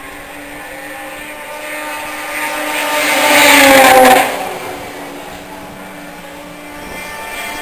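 Racing snowmobile passing by: its engine grows louder to a peak about four seconds in, drops in pitch as it goes past, and fades quickly. A second sled approaches near the end.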